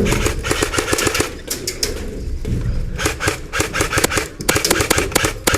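Airsoft gun firing rapid full-auto strings of shots: four bursts of fast clicking snaps, with short pauses between them.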